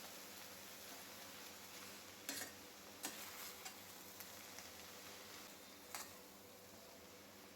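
Faint sizzling of food frying in a pan, with a few light clicks of a spoon against the pan, three times.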